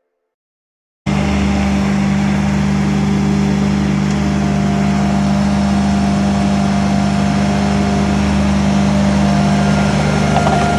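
Ditch Witch SK1050 mini skid steer's engine running steadily at an even speed, cutting in abruptly about a second in.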